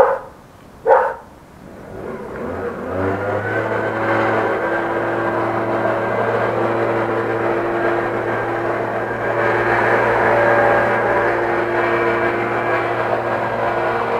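A dog barks twice, about a second apart. Then a motor spins up and settles into a steady, even hum that runs on loudly.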